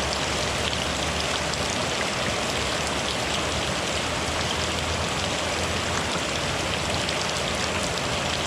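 Steady rain falling: an even hiss made up of many small drop ticks.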